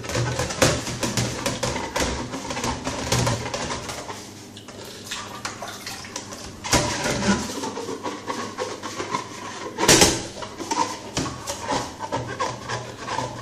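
Scouring pad scrubbing the clear plastic tube of a protein skimmer in a stainless-steel sink, a quick run of rubbing and clattering strokes that eases off for a few seconds and then picks up again, with one loud knock about ten seconds in.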